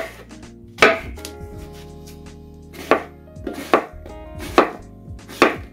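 Kitchen knife chopping through vegetables on a cutting board: about six sharp chops at uneven intervals.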